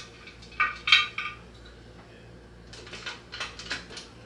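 Metal clanks and clinks from handling the cast-aluminium lid of an All-American 921 pressure canner: two louder ringing clanks about a second in, then several lighter taps around three seconds.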